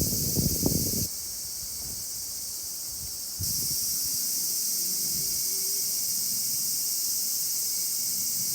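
Steady, dense high-pitched insect chorus. Its level drops abruptly about a second in and comes back a couple of seconds later, with some low rustling in the first second.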